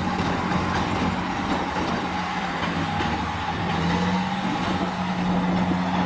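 Diesel engine of an eight-wheel tipper dump truck running steadily as the truck creeps forward with its body raised, dumping earth. A thin steady whine sits above the engine.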